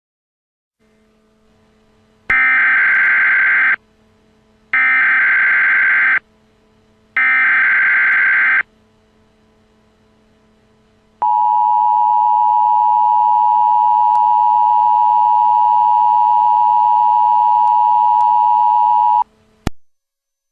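Emergency Alert System tones: three identical bursts of the SAME data header, a harsh digital warble about a second and a half each, then the steady two-tone EAS attention signal for about eight seconds, which cuts off with a click.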